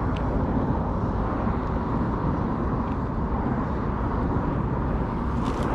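Steady low outdoor rumble with no clear single source, with a few faint clicks.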